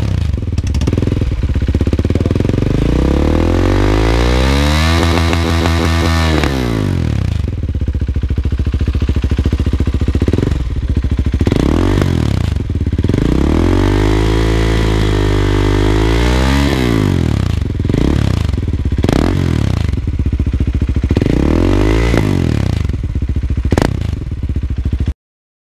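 KTM Duke 390's single-cylinder engine through a Greasehouse aftermarket silencer, revved again and again: one slow long rev, then a string of quick blips and a longer held rev, the pitch climbing and dropping back each time. The sound cuts off abruptly near the end.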